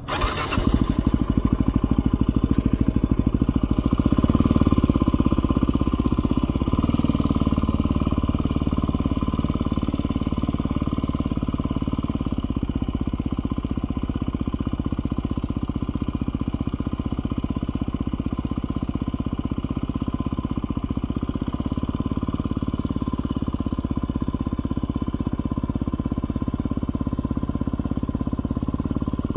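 Yamaha WR250R's single-cylinder four-stroke engine running steadily at low revs in low gear while the bike is ridden as slowly as possible through a cone course. It comes up sharply right at the start and is a little louder a few seconds in.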